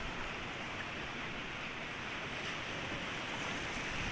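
Sea surf washing onto the beach, a steady rush of waves.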